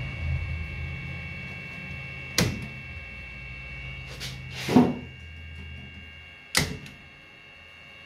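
Sharp clicks and knocks of switchgear in a fountain-pump control panel during an RCCB test, four of them, the loudest about halfway through, over a steady low mains hum and a faint high whine. The low hum fades away after the last click.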